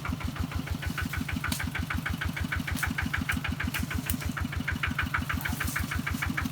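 Farm machine's engine running steadily in the mud, with an even chugging beat of about seven beats a second.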